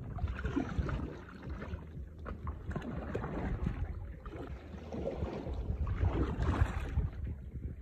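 A plastic paddle dipping and pulling through lake water beside an inflatable boat, splashing in about three surges, the longest and loudest near the end. Wind rumbles on the microphone throughout.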